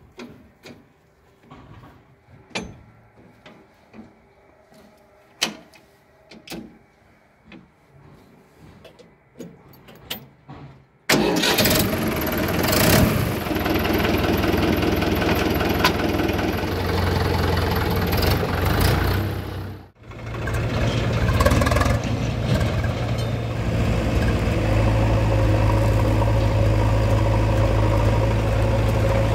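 A few knocks and clicks as someone climbs onto a Swaraj 843 XM tractor, then about eleven seconds in its three-cylinder diesel engine starts abruptly and runs. Near twenty seconds the sound drops out briefly, and a diesel engine then runs on steadily with a deep, even drone.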